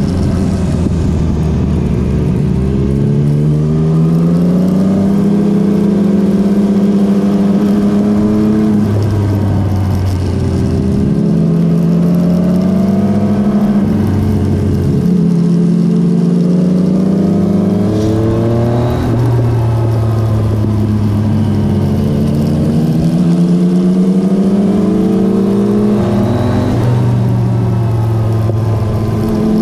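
Motorcycle engine heard on board while riding. Its note climbs under acceleration and drops back at each gear change or roll-off, over and over.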